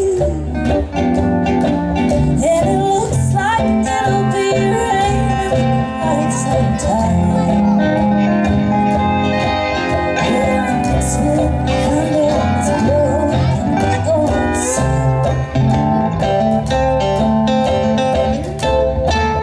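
Live acoustic string band playing a country/bluegrass-style tune: mandolin, archtop guitar and upright bass.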